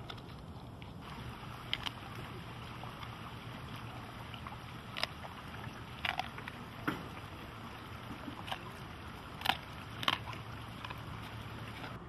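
Tigers eating raw meat and licking: a handful of short, sharp mouth clicks and smacks scattered over a steady low, wind-like background noise.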